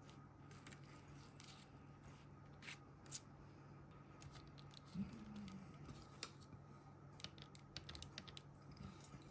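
Faint, scattered light clicks and ticks of kitchen handling over a low steady hum, with a soft knock about five seconds in.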